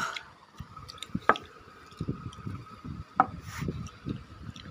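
A metal fork clicking sharply against a plastic bowl of instant noodles twice, amid soft rubbing and handling knocks on a wooden plank floor.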